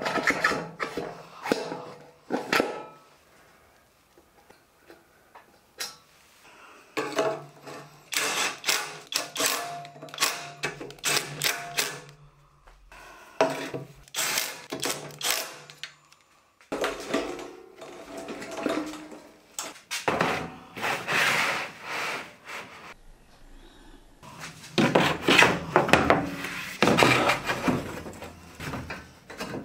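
Workshop assembly sounds: a cordless drill running in short bursts as it drives bolts into a steel caster plate, mixed with clanks and knocks of metal parts and wheels being handled on a welded steel frame.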